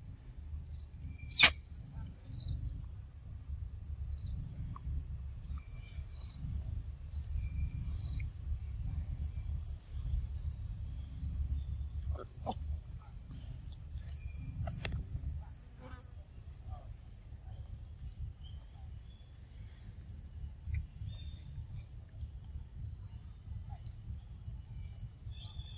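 Insects chirring steadily in two high, unbroken tones over a low rumble, with a sharp click about a second and a half in and a few fainter clicks later.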